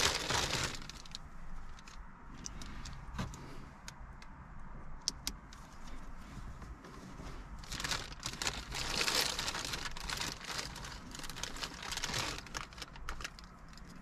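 Plastic bag crinkling and rustling as wiring harnesses and connectors are handled and pulled out of it. It comes in a short burst at the start and a longer spell from about eight to twelve seconds in, with a few light clicks in the quieter stretch between.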